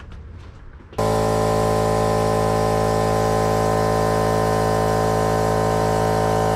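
Electric air compressor switching on about a second in and running with a loud, steady hum, building air pressure to pressurize a fuel injector test line.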